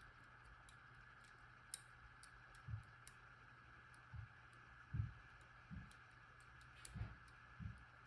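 Faint scattered clicks and about six soft, dull knocks from a disc-detainer pick turning the rotating discs inside an Abloy padlock during picking.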